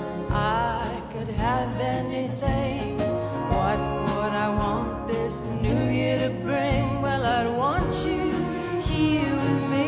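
Live orchestral pop music: a slow ballad played by orchestra and band, with a lead melody line in wide vibrato over sustained chords and a soft beat about once a second.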